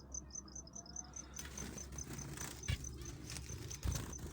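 Insect chirping steadily at a high pitch, about six even pulses a second. From about a second and a half in, a rustling noise joins it, with two dull knocks, the second near the end.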